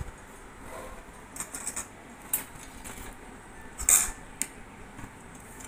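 Metal spoons clinking against steel bowls and a steel serving pan: a few scattered clinks, the loudest about four seconds in.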